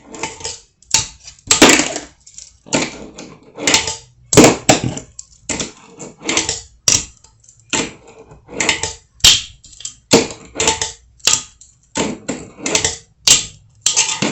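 Fingerboard on a wooden ramp: a quick series of sharp clacks from pops and landings mixed with short rolls of the little wheels on the wood, about one or two a second.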